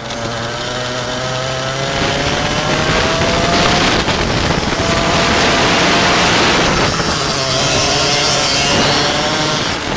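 Go-kart engine running hard, its pitch climbing steadily over the first four seconds as it accelerates, then holding.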